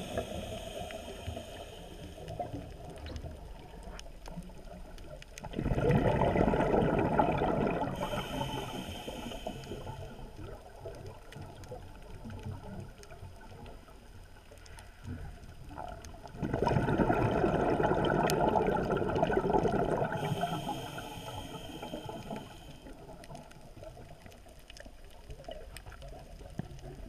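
A scuba diver breathing through a regulator underwater: two loud rushes of exhaled bubbles about ten seconds apart, each followed by a thinner, hissing breath in. Between breaths, faint watery background.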